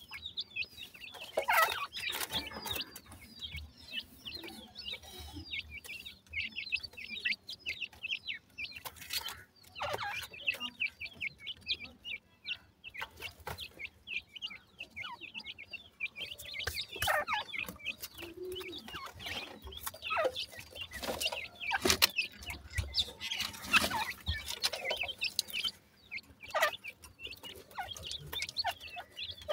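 A group of young francolins (teetar chicks) calling constantly with many short, high chirps and peeps while they feed. Crumbly soil rustles and crackles as it is broken up and the birds peck through it.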